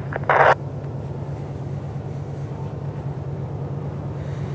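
A steady low engine drone, with a brief loud burst of noise about a third of a second in.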